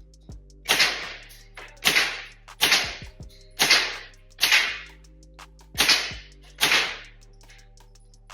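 Seven suppressed gunshots from a Pak-9 fired at an uneven pace, each a sharp crack with a short echoing tail.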